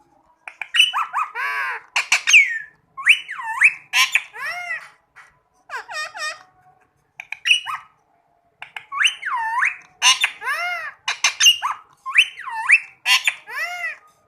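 Indian ringneck parakeet squawking in runs of short, harsh calls that swoop up and down in pitch, with a brief lull near the middle.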